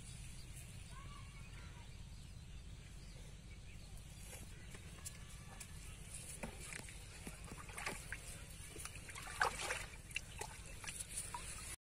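Hands splashing and sloshing in shallow muddy water, groping for an eel by hand. Small scattered splashes begin about halfway through, the loudest about four-fifths of the way in, over a low steady rumble.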